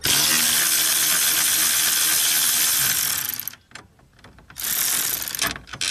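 Cordless electric ratchet running as it backs out the bus-bar bolts on a hybrid battery pack. It runs in two spells: about three and a half seconds, then after a short pause about one second more.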